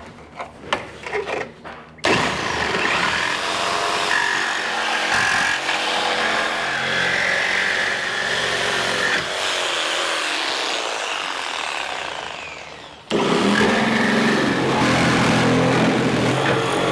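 A few knocks, then a chainsaw running and cutting through the sheet-steel roof pillars of a car body. It stops abruptly about 13 seconds in and is replaced at once by another loud, steady run.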